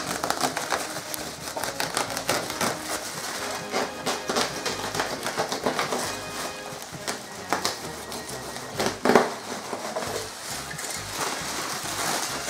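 Plastic bubble wrap crinkling and rustling as it is cut with a box cutter and pulled away by hand, a steady run of small crackles with one louder crunch about nine seconds in.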